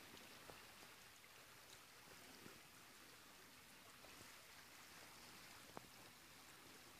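Near silence: a faint steady hiss of room tone, with a single faint click near the end.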